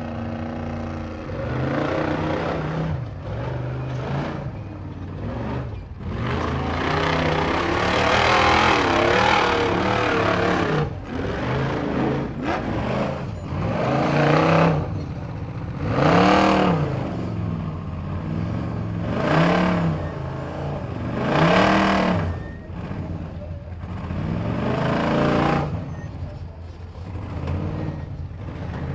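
Ultra4 rock-racing car's engine revving hard as it climbs boulders. A long stretch of heavy throttle about six to eleven seconds in is followed by about five separate rev bursts, each rising and falling in pitch, a few seconds apart.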